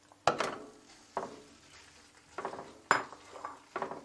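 A ceramic bowl knocking and clinking against a nonstick pan while a silicone spatula scrapes raw chicken strips out of it: about five sharp knocks, the loudest near the start and about three seconds in.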